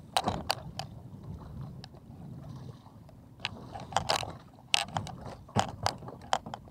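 A landed striped bass and its multi-armed umbrella rig being handled on a plastic kayak: about ten irregular sharp knocks and clicks, bunched together in the second half, over a low steady rumble.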